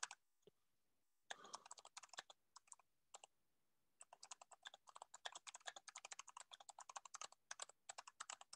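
Faint computer keyboard typing: a few scattered keystrokes in the first seconds, then a steady run of quick keystrokes from about four seconds in.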